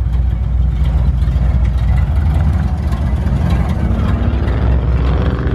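Car engine idling, a steady low rumble.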